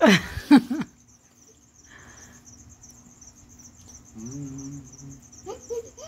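Crickets chirping steadily in a high, pulsing trill. A loud voice-like sound sweeps down in pitch in the first second, and a short low hum comes past the middle.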